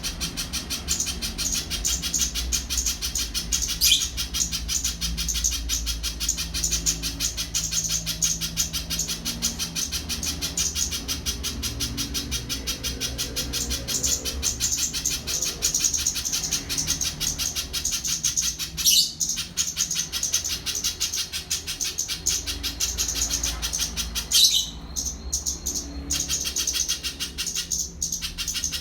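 Spiderhunter calling: an unbroken, very rapid run of high chip notes, with a few louder, sharper notes now and then.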